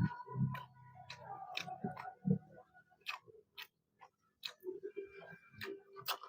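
Close-up mouth sounds of someone eating a red snapper head: wet chewing, lip smacks and irregular little clicks as the flesh is sucked off the bones.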